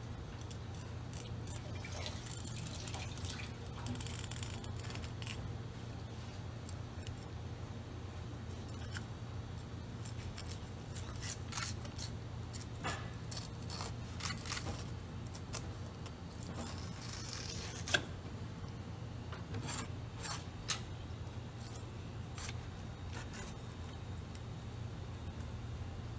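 Kitchen knife cutting and scraping along an eel on a plastic cutting board while it is being filleted: scattered scraping and rasping strokes with short clicks of the blade on the board, a couple of sharper ticks in the second half, over a steady low hum.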